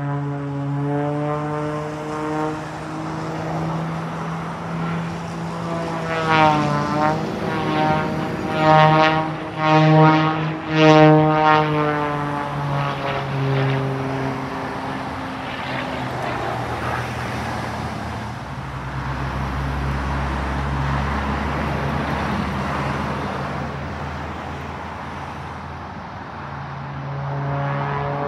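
Propeller engine of an aerobatic plane droning overhead, its pitch sweeping up and down several times in quick succession as it manoeuvres, loudest in the middle. Partway through it gives way to a rougher rushing noise with a low rumble, and the engine tone comes back near the end.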